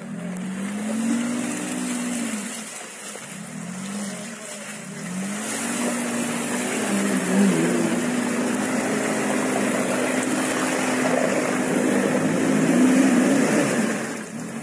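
Off-road SUV engine revving hard as the vehicle churns up a slope through deep mud, its wheels ploughing through the ruts. The revs rise and fall twice in the first few seconds, then are held high for most of the rest.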